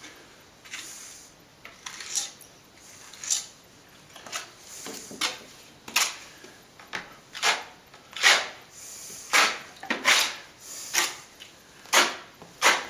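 A plastering blade scraping over a wall in repeated short strokes, about one or two a second and unevenly spaced, as a white coat of cornice cement is spread and feathered out.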